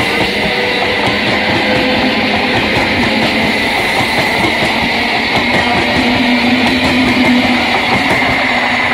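Electric multiple unit local train running past on the track: a loud, steady rumble of coaches and wheels on the rails.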